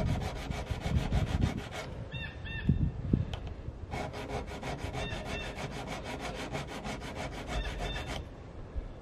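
A coarse diamond hone rasps back and forth over the steel front sight of a flintlock rifle, smoothing out the file marks left from filing the sight down. The quick, even strokes pause about two seconds in and start again about four seconds in.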